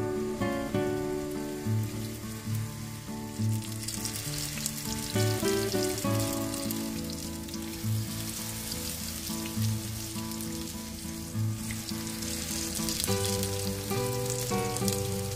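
Spoonfuls of eggplant fritter batter sizzling as they shallow-fry in hot oil in a pan, the sizzle growing louder about four seconds in as more batter goes in. Background music with a steady beat plays underneath.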